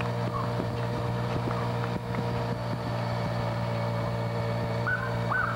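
Motorcycle engine running steadily with a low, even hum. A short high chirp starts repeating about every half second near the end.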